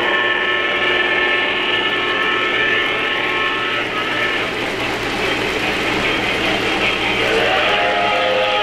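3-rail O-scale model trains running on the layout track: a steady rumble and clatter of wheels and motors. A held, whistle-like tone sounds through the first four seconds, and a lower one starts near the end.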